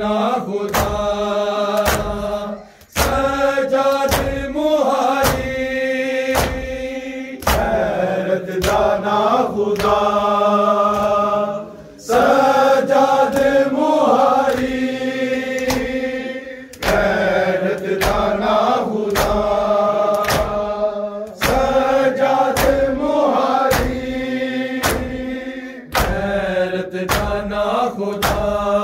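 Men's voices chanting a noha, a Shia lament, in sung lines with short breaks between them. Through the singing comes a steady beat of hands slapping bare chests in matam.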